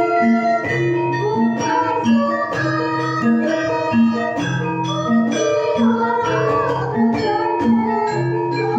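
Javanese gamelan ensemble playing: bronze metallophones and kettle gongs struck in a steady, even beat, with a low ringing note returning about once a second underneath.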